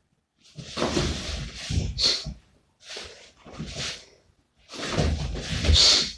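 Rustling and thuds in three bursts, each a second or more long and the last the loudest: a padded jacket hanging on a wardrobe door being grabbed, yanked and hit.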